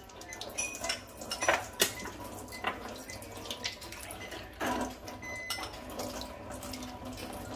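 Glass cups clinking and knocking as they are handled, with a brief high beep about five seconds in.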